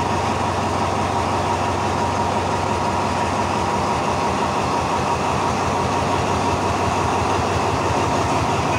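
Diesel-electric locomotive No. 4405 running at idle while standing at the platform: a steady low engine hum under a constant high whine.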